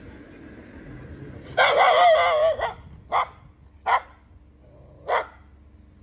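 A dog: one drawn-out, wavering yelp about a second and a half in, then three short barks.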